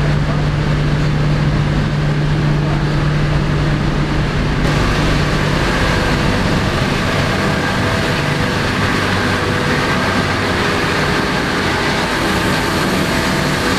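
Loud, steady din of a ship's engine room: running machinery and ventilation. A steady low hum is strong for about the first five seconds, then drops back as a brighter hiss takes over.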